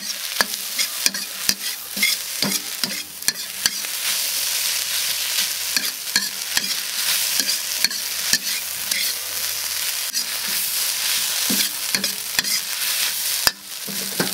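Egg fried rice with cabbage sizzling in lard in a wok as it is stir-fried, a metal ladle scraping and knocking against the wok. The sizzle is a steady hiss, broken by sharp irregular clacks of the ladle.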